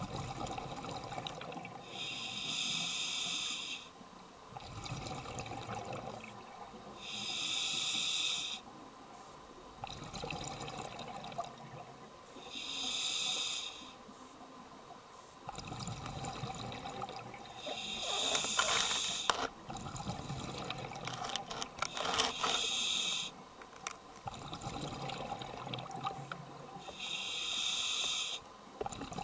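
Scuba diver breathing through a regulator underwater: six hissing inhalations, roughly every five seconds, each followed by the low burble of exhaled bubbles. A few sharp clicks come midway.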